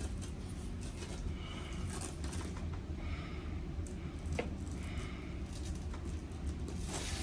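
Steady low room hum with faint rustling and scraping of couch upholstery being handled, and one sharp click about four seconds in.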